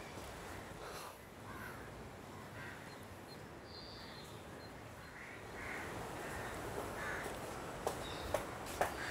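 Outdoor garden ambience with crows cawing now and then and a few higher bird chirps. Near the end come several sharp taps, about two a second.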